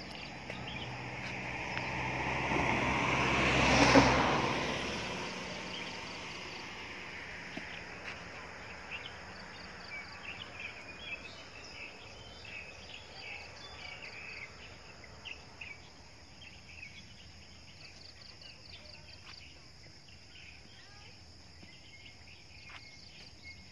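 A vehicle passes, its engine hum and road noise swelling to a peak about four seconds in and fading away by about six seconds. Insects keep up a steady, high, pulsing chirp, with scattered short chirps in between.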